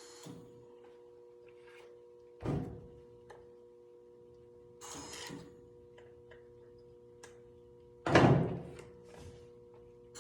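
A few knocks and clunks, one about two and a half seconds in and a louder one near the end that rings briefly, over a steady electrical hum.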